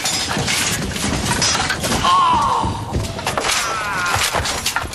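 Cavalry melee on a film soundtrack: a jumble of thuds, crashes and smashing, with horses and shouts mixed in.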